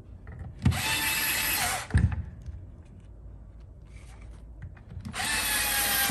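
Electric screwdriver driving screws into a plastic housing: two runs of about a second each, the motor dropping in pitch at the end of the first as the screw seats. A knock follows each run.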